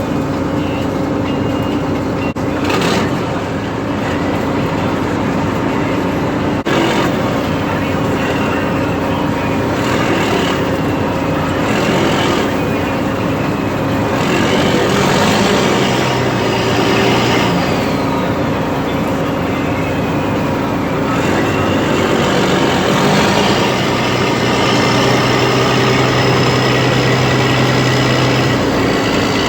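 John Deere 9610 combine running steadily under load while harvesting corn: a constant machine hum with shifting high whines that rise and fall every few seconds.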